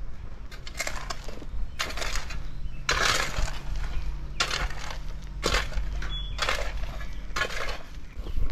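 Crushed shell and gravel crunching in short bursts about once a second, under work boots and a steel pick mattock worked into the sandy ground, with a low steady hum underneath.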